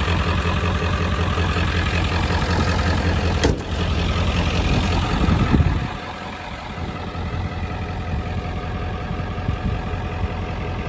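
1995 Ford F-350's 7.3 Power Stroke turbo-diesel V8 idling steadily. A truck door shuts with a sharp click about three and a half seconds in, and the low engine sound drops and stays lower from about six seconds in.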